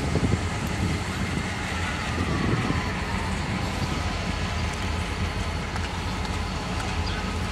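Diesel locomotive engine idling with a steady low rumble.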